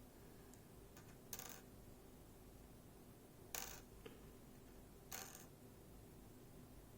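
Three faint clicks, about one, three and a half and five seconds in, of small metal lock pins being set down one by one while a lock is being disassembled.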